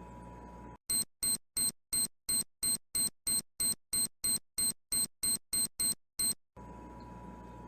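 Electronic alarm beeping: a short, high-pitched beep repeated about seventeen times, roughly three a second. A steady background hum stops while it beeps and comes back after.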